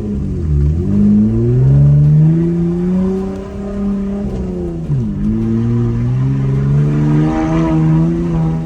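Off-road vehicle's engine revving up and down under load while climbing a rock obstacle. The pitch drops sharply about half a second in and again about five seconds in, each time climbing back, and stays high near the end.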